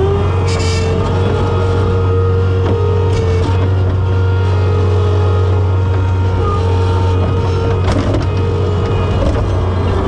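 John Deere 675B skid steer's engine running steadily at high revs, with a few sharp knocks about half a second, three seconds and eight seconds in.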